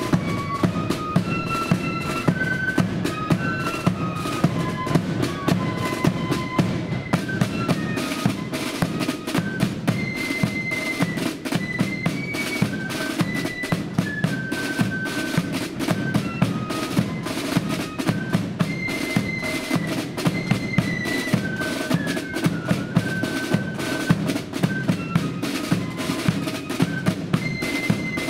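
Marching flute band playing a tune: flutes carry a single melody line over snare drums and a bass drum beating a steady march rhythm.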